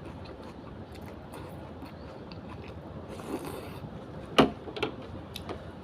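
Eating sounds from a person at a bowl of noodle soup: soft chewing and rustling noise, then a sharp click about four and a half seconds in and two softer clicks after it.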